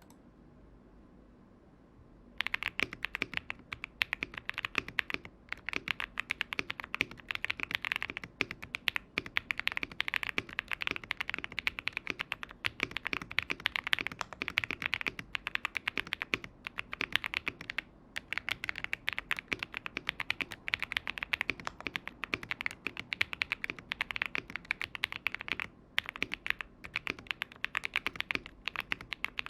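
Fast typing on a Zoom TKL mechanical keyboard with tactile Akko Cream Blue switches on an aluminium plate, PE foam between plate and PCB. The keystrokes start about two seconds in and run as dense rapid clicking with short pauses.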